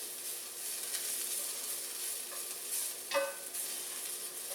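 Onions frying in canola oil in a non-stick frying pan, a steady sizzle as they caramelize, with a short clink about three seconds in.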